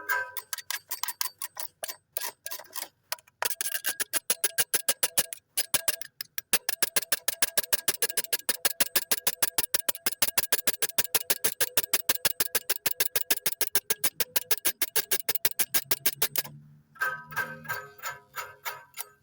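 A cowbell rung rapidly and evenly, several metallic clanks a second with a ringing tone, pausing briefly twice. It stops near the end, where a different ringing tone with a low hum takes over.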